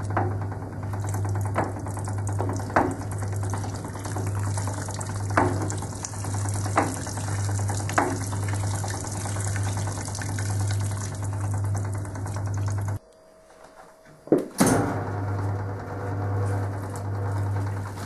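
Servis Superheat washing machine's electric motor humming steadily as it drives the power wringer rollers, with water running off the squeezed laundry and a few sharp clicks. About thirteen seconds in the sound cuts out for a second and a half, then comes back with a loud knock.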